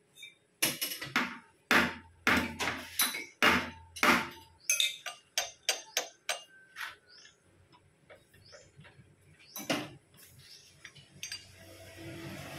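Sharp, irregular metal-on-metal knocks and clinks from a lathe's four-jaw chuck as its jaws are worked with a chuck key and the workpiece is set and tapped into position. The knocks come thick in the first few seconds, thin out, and stop about ten seconds in.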